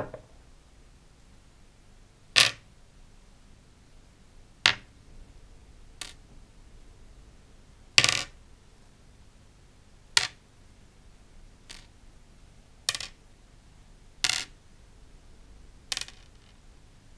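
Small rusty brass and steel lighter parts set down one at a time with tweezers on a wooden tabletop: about ten sharp little clicks, spaced a second or two apart.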